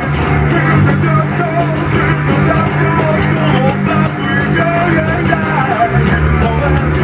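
Heavy rock band playing live in a rehearsal room: distorted electric guitar and drums with vocals sung or shouted into a microphone. The low guitar riff shifts about six seconds in.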